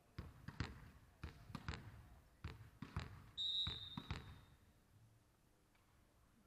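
Volleyball bounced about a dozen times, at an uneven pace, on the hardwood court floor before a serve, each bounce echoing in the hall. A referee's whistle sounds once for under a second near the middle, the signal to serve.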